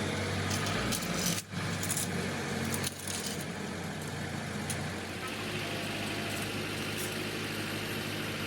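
A steady low engine-like hum with a few short metallic clinks and knocks over it.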